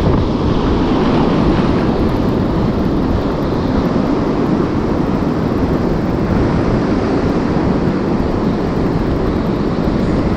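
Strong sea wind buffeting the microphone as a steady, unbroken rumble, with surf washing on the beach behind it.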